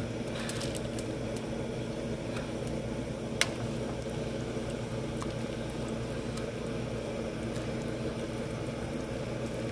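Pot of water bubbling steadily at the boil on the stove, with one sharp click about three and a half seconds in.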